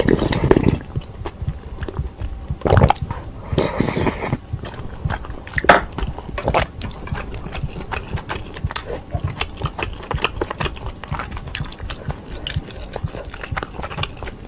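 Close-miked eating sounds of ramen with dumplings: a sip of broth from a spoon at the start, then steady chewing with wet mouth noises and many small clicks, including one sharp click a little before the middle.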